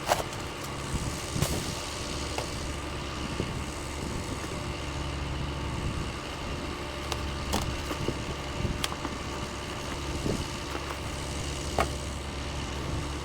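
Pickup truck engine idling steadily, with a few sharp clicks and knocks scattered through.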